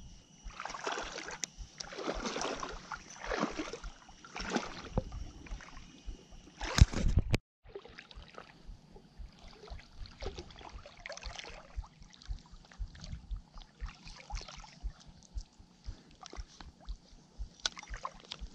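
Water sloshing and splashing in shallow, reedy water, with wind buffeting the microphone in low thumps. The swishing is strongest in the first seven seconds, ends in a loud sharp splash or swish, and after a brief dropout turns to fainter, scattered rustling.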